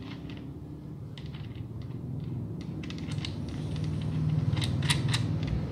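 Small metal clicks and taps of a nut and spindle parts being handled and fitted on an angle grinder's spindle, thickest near the end, over a low steady hum.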